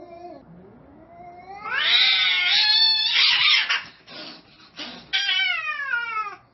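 Domestic cats fighting: a low, drawn-out yowl that slowly rises, then loud harsh screeching from about two seconds in. Two short harsh bursts follow, and a last screech falls in pitch near the end.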